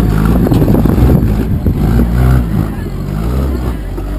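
Toyota Land Cruiser 70-series 4x4 engine working hard under load as the truck climbs a steep rocky bank, with tyres crunching over rock and loose stones. After about two and a half seconds the sound drops as the truck pulls up and away.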